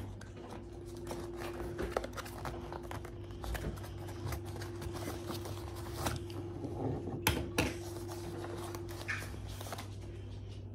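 Cardboard toy box being pulled open and plastic parts taken out: scattered rustling, scraping and small clicks, with two sharper clicks about seven seconds in. A steady low hum runs underneath.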